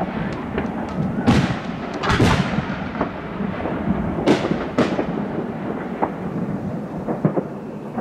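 Aerial firework shells bursting overhead, one boom after another, each trailing off in a rumbling echo. The loudest bursts come about one, two and four to five seconds in.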